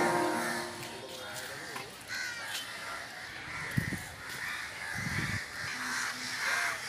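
Crows cawing repeatedly in the background, with two low thumps on the microphone about four and five seconds in.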